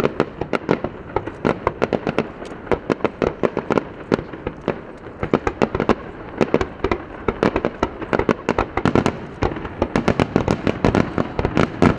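Fireworks display: aerial shells bursting in quick succession, a dense run of sharp bangs and crackles several a second, crowding closer together near the end.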